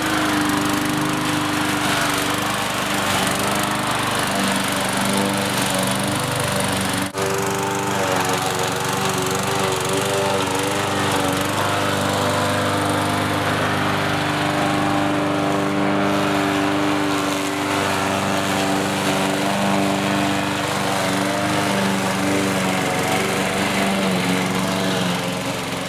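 New petrol lawnmower engine running steadily at full throttle, having just revved up after starting. It dips for an instant about seven seconds in and begins to die away right at the end.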